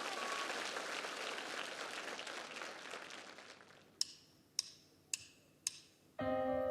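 Audience applause dying away, then four sharp, evenly spaced clicks about half a second apart counting in the band. Sustained opening chords of the music start near the end.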